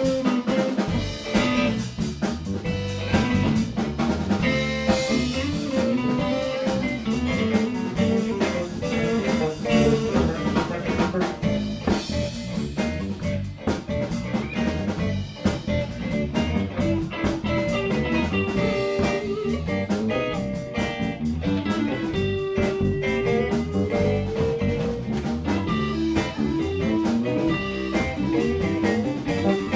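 Live blues band playing an instrumental passage with no vocals: electric guitar over bass and drum kit.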